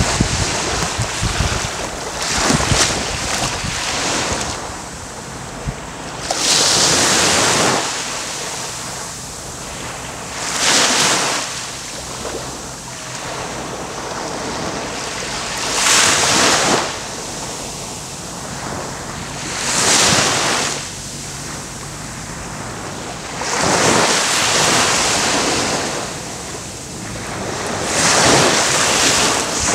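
Small waves breaking and washing up a sandy beach, each swell rising to a hiss about every four to five seconds.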